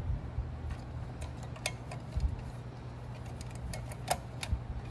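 Scattered light clicks and taps of hands handling a fireplace insert blower, its wire connectors and its sheet-metal housing, the sharpest about a second and a half in and near the end, over a low steady hum.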